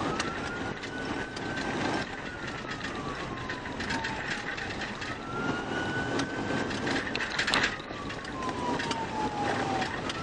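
Police car siren on a slow wail, its pitch rising for about two seconds and falling for about three, twice over, with vehicle running noise underneath.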